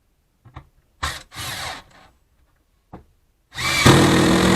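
A few light knocks and a brief scraping on wood, then a power drill starts about three and a half seconds in and runs steadily, driving into the shelf wood.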